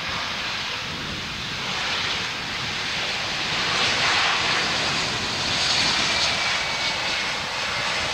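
Airbus A321neo's jet engines running as the airliner rolls past close by: a broad rushing roar that grows louder, with a faint high whine coming in about five seconds in.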